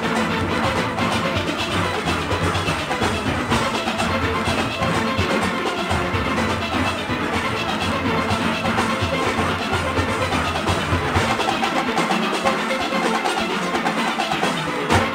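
Steel orchestra playing: many steelpans together over drums and percussion, loud and dense. The bass falls away about twelve seconds in, and a sharp accented hit lands near the end.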